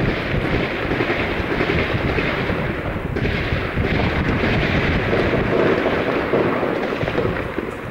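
Heavy, continuous gunfire from an exchange of fire, many shots running together into a dense crackle with no break.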